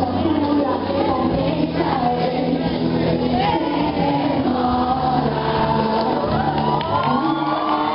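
A woman singing a Portuguese-language song into a microphone over a backing music track.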